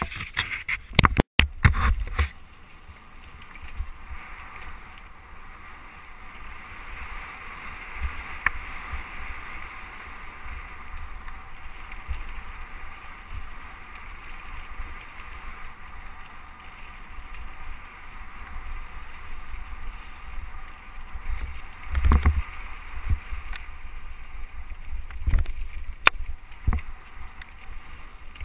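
Mountain bike ridden along a leaf-covered dirt trail, recorded by a handlebar-mounted camera: a steady rush of tyre and wind noise with rumble, and the bike and camera knocking sharply over bumps, several times at the start and again near the end.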